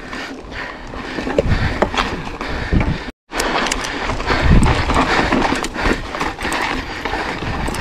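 Mountain bike rolling over sandstone slickrock and loose rock: tyres on rock and the bike rattling, with frequent sharp knocks and clatter over ledges and a low rumble. The sound cuts out for a moment about three seconds in.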